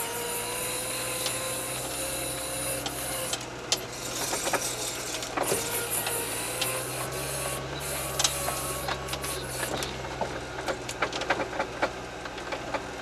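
All-terrain vehicle's engine and drivetrain working hard in deep snow with the differential locks engaged: a steady hum with a faint whine and hiss, broken by many knocks and clatters.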